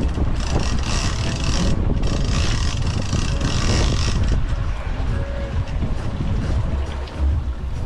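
Boat motor running steadily under a mix of wind and water noise.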